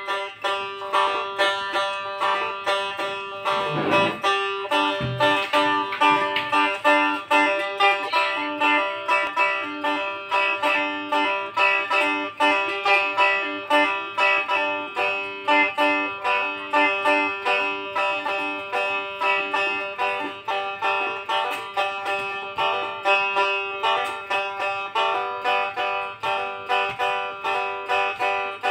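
Fuglong, the two-string Blaan boat lute, played solo: a fast, busy stream of plucked notes over a steady drone note.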